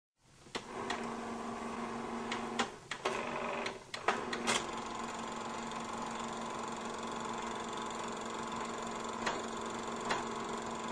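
Old film projector running with a steady mechanical whir and hum, with scattered clicks and pops of worn film.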